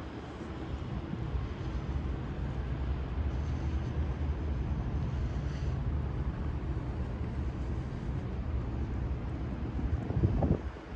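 Steady low engine drone, with a brief louder rumble about ten and a half seconds in.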